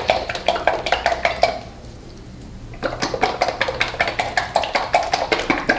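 Capped bottle of an oil-based liquid preparation shaken hard to mix it: the liquid sloshes and the bottle clacks in quick strokes. There are two bouts, with a short pause about two seconds in.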